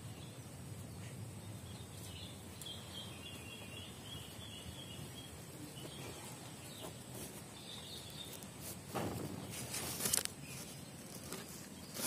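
Quiet outdoor background with faint, high bird chirping twice, and a short rustle of leaves and twigs about nine seconds in.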